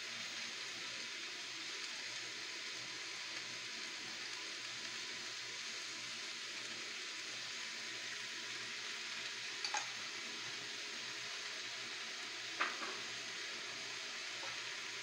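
Diced potatoes and carrots sizzling steadily in a hot oiled wok as oyster sauce is poured over them. Two quick clicks a little past halfway and a sharper knock near the end.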